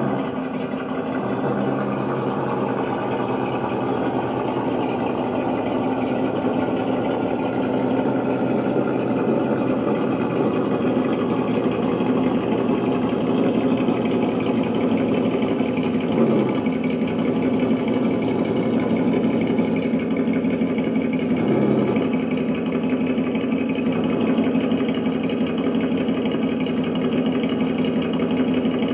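Electronic engine-sound module in a Traxxas RC hauler truck playing a simulated engine idle through its small speaker, steady, with two brief blips about 16 and 22 seconds in.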